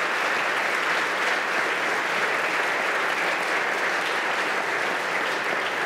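A large audience of seated legislators applauding steadily.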